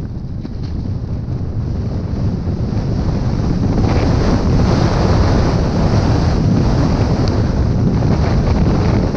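Heavy wind noise buffeting the microphone of an action camera carried down a groomed ski run at speed, mixed with the hiss and scrape of edges on hard-packed snow. The noise grows louder and fuller a few seconds in.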